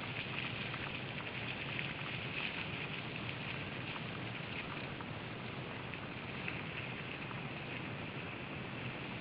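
Mountain bikes riding down a forest trail: a steady rush of tyres rolling over leaves and snow, with a patter of small clicks and rattles from the bikes.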